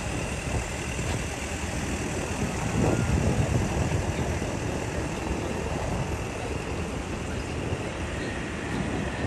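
City street ambience: a steady low rumble of road traffic, swelling slightly about three seconds in.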